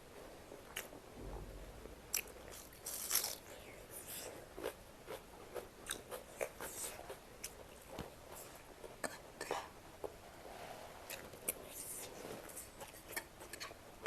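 Close-up eating sounds: a person biting and chewing, with crisp crunches and sharp mouth clicks coming irregularly, several a second at times.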